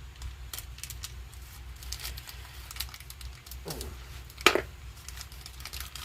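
Light rustling and scattered small clicks of a small hardware packet being opened and the threaded wood inserts and set screws inside handled, with one sharper click about four and a half seconds in.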